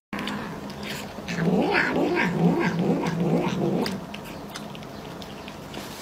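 Domestic tabby cat making a run of short, wavering low calls while eating cake, about three a second for a couple of seconds, then stopping.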